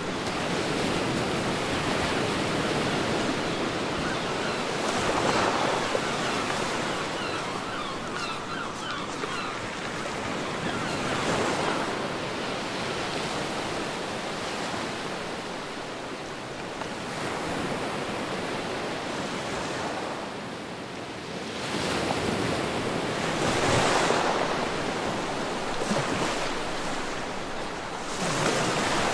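Ocean waves breaking and washing on a beach, the surf swelling and easing in surges several seconds apart.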